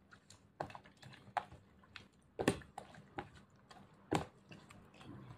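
Hand mixing sliced raw beef in its lemon-juice marinade in a plastic tub: irregular soft wet squishes and small taps of fingers against the plastic, with two sharper ticks about two and a half and four seconds in.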